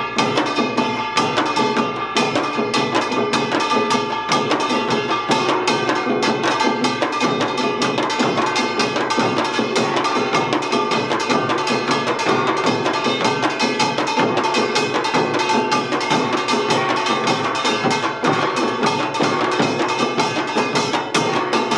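Samulnori ensemble playing Utdari-style rhythms: small kkwaenggwari gong, jing gong, janggu hourglass drums and buk barrel drums struck together in a fast, dense, unbroken pattern, with the metal gongs ringing over the drums.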